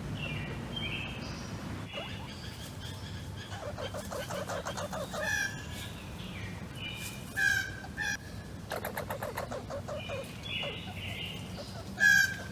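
Red squirrel chattering: stretches of fast rattling trill mixed with sharp high chirps, the loudest call coming near the end.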